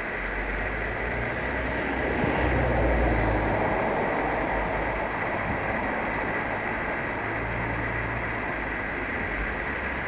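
Steady low engine rumble from motor vehicles, under a constant hiss, swelling briefly a couple of seconds in. No birdsong stands out.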